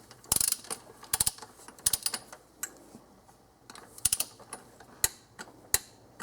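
Ratchet wrench clicking in short, irregular runs of strokes while an intake manifold bolt is tightened to torque.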